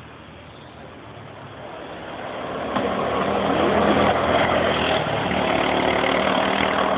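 Go-kart engine running, growing louder over the first three seconds as the kart comes close and passes, then running on steadily at full loudness.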